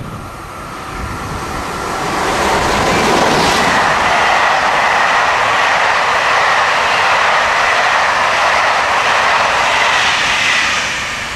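A SNCF BB 7200 electric locomotive hauling TER coaches passes close by at speed. The rush of wheels on rail builds over the first two seconds and holds steady as the coaches go by, with a steady high ring on top. It fades near the end as the last coaches pull away.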